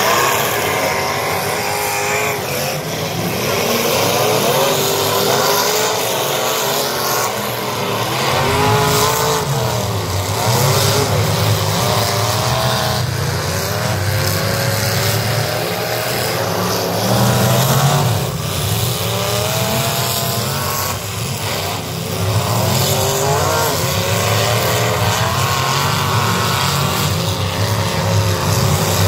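Several V8 demolition derby cars' engines revving hard together, their pitch rising and falling again and again over a steady low rumble.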